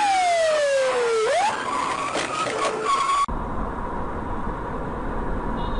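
Car tyres squealing in a skid, one shrill tone sliding steadily down in pitch and then jerking back up, followed by several sharp knocks. About three seconds in it cuts to steady road rumble with a thin whine.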